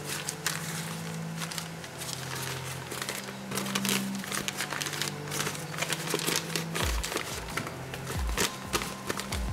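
Newspaper crinkling and crumpling steadily as it is unwrapped by gloved hands, with a few low thuds in the last few seconds. Background music with low held notes plays underneath.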